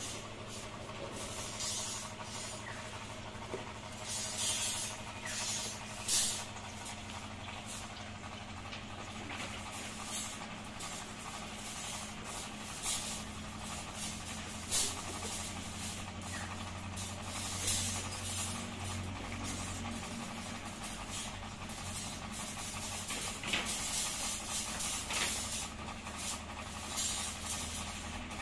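Steel wire clinking and scraping in irregular short bursts as zigzag chain-link fence wires are woven together by hand, over a steady low hum.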